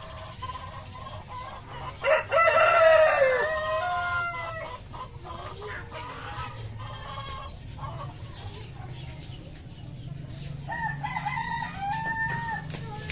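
A rooster crows once, loudly, about two seconds in, the call dropping in pitch at its end. Near the end a quieter, wavering chicken call follows, among the clucking of hens.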